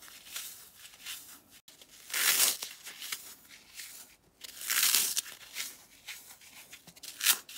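Dry floral foam coated in baby powder being squeezed and crumbled between the fingers: crisp crunching and crackling, in three louder bursts about two seconds in, about five seconds in and a short sharp one near the end, with small crackles between.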